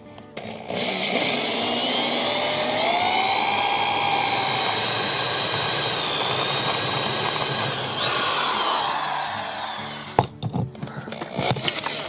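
Electric drill running under load, its bit grinding into a seized seat-belt anchor bolt whose Torx head is rounded out, with a shrill whine that rises and falls in pitch. The drill stops about ten seconds in, followed by a few clicks and knocks.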